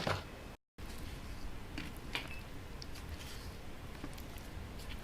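Quiet room hum with a few light clicks and taps from small handling at the counter, broken by a brief moment of total silence about half a second in.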